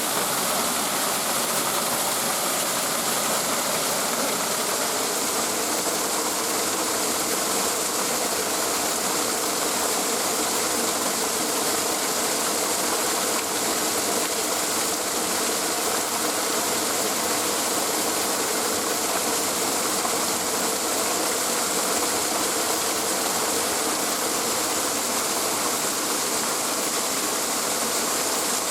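Steady rushing of stream water, an even hiss that does not change.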